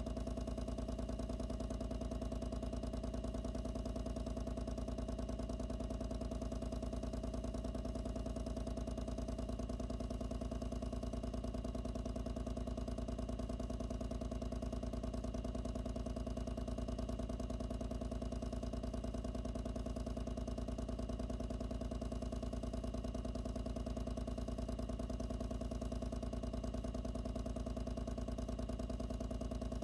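Loud water pump running steadily inside its enclosure, heard close up: an even motor hum with a fast, fine pulsing, its upper tone dropping away about ten seconds in.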